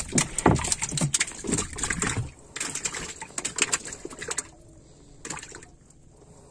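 Small freshly caught fish flapping and slapping against the wet wooden hull floor of a fishing boat, a rapid flurry of wet slaps that comes in bursts and dies down after about five seconds as a hand pins the fish down.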